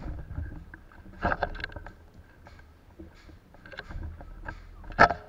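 Footsteps on gravel and clattering gear as a player moves with an airsoft rifle, over a low rumble of movement on the camera microphone. A sharp crack near the end is the loudest sound, with a short ring after it.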